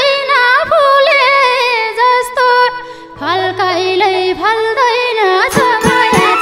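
A woman singing a Nepali dohori folk song into a microphone, with a brief pause about three seconds in before the melody resumes. Near the end the band's drums and instruments come in.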